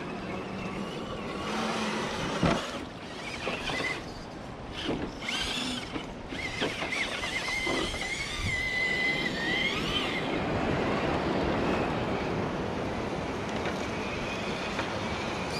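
Axial SCX10 III Base Camp 1/10 electric RC crawler driving through river water and over rock. Its motor and gears whine, rising and falling in pitch, clearest past the middle, over a steady rush of water and wind, with a sharp knock about two and a half seconds in.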